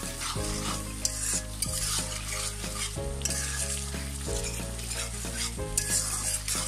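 Spice paste frying in hot oil in a pan, sizzling steadily while a spatula stirs and scrapes it in irregular strokes, with background music underneath.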